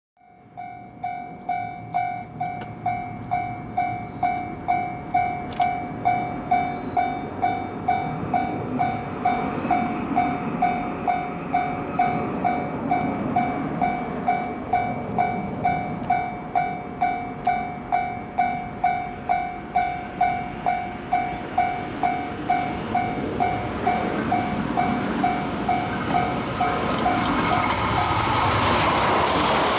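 Japanese level-crossing warning bell ringing in a steady repeating ding, about one and a half strikes a second, signalling an approaching train. Near the end the rising rush and wheel noise of a JR Kyushu 885 series electric express passing close by takes over and drowns the bell.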